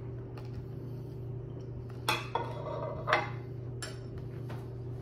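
A metal fork clinking against a plate twice, about two and three seconds in, the second clink the loudest, with a lighter tick just after, over a steady low hum.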